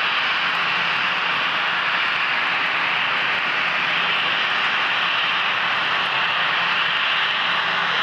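Jet aircraft engines running steadily: a loud, unchanging rushing noise with a faint low hum underneath.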